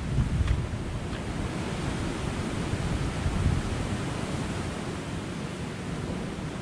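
Sea surf washing against a rocky shoreline, with wind buffeting the microphone as a steady low rumble.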